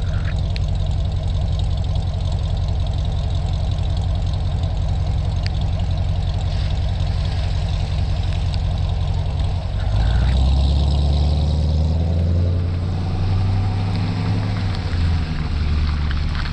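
Modified C7 Corvette Grand Sport's 6.2-litre V8 idling steadily, then revving and pulling away about ten seconds in, the engine note rising and falling for several seconds.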